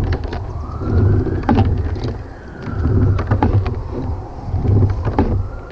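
Wind buffeting the microphone in a gusty low rumble, with a distant siren slowly wailing up and down behind it and scattered sharp clicks and knocks close by.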